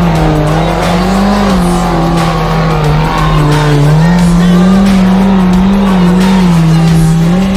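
Small off-road 4x4's engine held at high revs under load as it climbs a muddy gully with its wheels spinning in the mud. The engine pitch wavers up and down as the throttle is worked.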